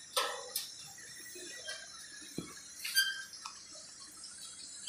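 Scattered light metallic clicks and clinks from stainless steel chair parts and tools being handled during assembly, the loudest about three seconds in with a brief ring.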